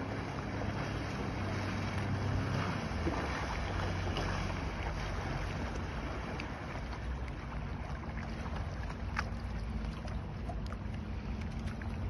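Motorboat engine of a Seven Seas Hermes Speedster runabout running steadily as a low hum, with wind buffeting the microphone.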